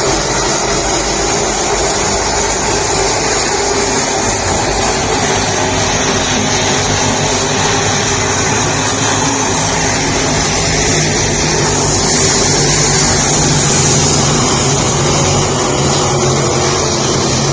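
Race car engines running together, a steady loud drone that swells slightly about twelve seconds in.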